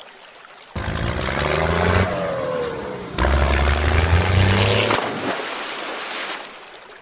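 Motor vehicle engine sound, revving with shifting pitch. It starts about a second in, changes abruptly to a louder pass about three seconds in, then fades out near the end.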